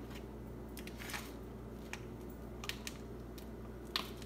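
A few light, scattered clicks and taps from handling things in a frying pan, the sharpest near the end, over a steady low hum.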